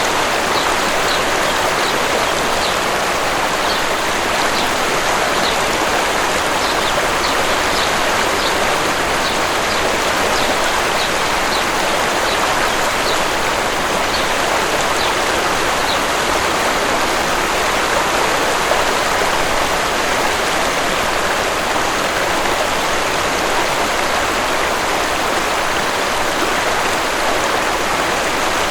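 Steady rushing of a waterfall. A small bird gives short high chirps over it, repeated about once or twice a second, stopping a little past halfway.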